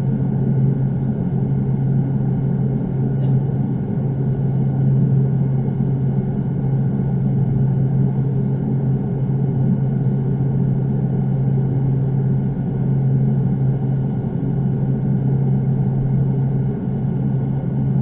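Steady low mechanical hum that does not change in pitch or level.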